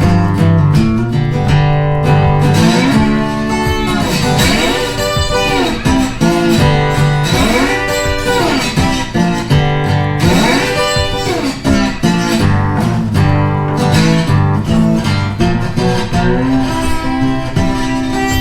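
Background music led by guitar, with notes bending up and down over a steady bass line.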